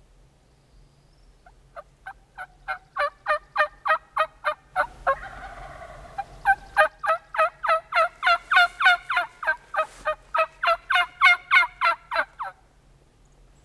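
Turkey yelping: a fast run of sharp, evenly spaced yelps, about four a second, broken around five seconds in by a short raspy stretch, then resuming and stopping shortly before the end.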